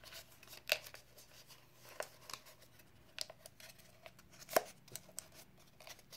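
Orange craft paper wrapped around a cardboard toilet-paper tube being folded and tucked in by hand: scattered short, crisp paper crackles and taps, the loudest a little past halfway.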